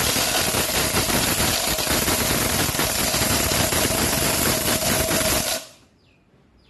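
Vision Jiyo+ 850 W blender grinding hard pieces of dry turmeric root in its stainless-steel jar: a steady motor whine under the rattle and clatter of the pieces against blades and jar. It is switched off and cuts out about five and a half seconds in.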